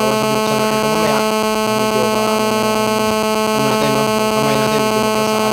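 Loud, steady electrical buzz and hum with a rapid, even pulse, a continuous interference noise in the audio.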